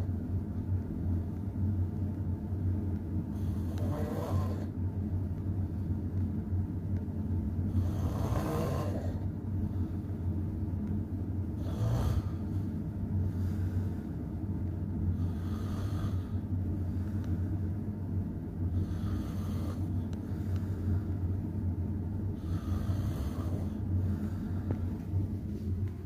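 A sleeping person snoring, one loud noisy breath about every four seconds, over a steady low hum.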